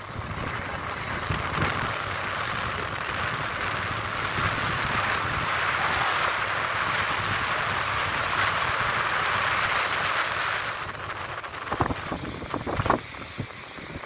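Sea surf rushing onto the beach with wind on the microphone, a steady noise that drops away about ten seconds in, followed by a few short wind thumps on the microphone.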